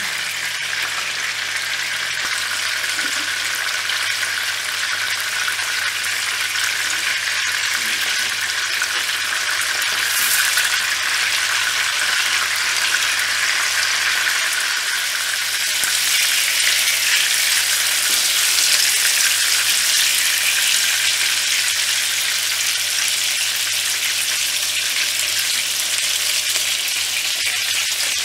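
Chicken-mince seekh kebabs shallow-frying in hot oil in a frying pan: a steady sizzle.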